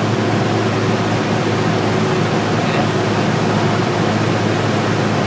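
Cessna 172's piston engine and propeller running steadily, heard inside the cabin as a constant drone with a hum of airflow.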